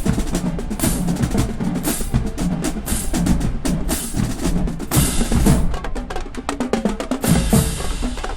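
Marching band drumline playing a cadence: rapid snare strokes and rolls with sharp rim and stick clicks over pitched bass drums.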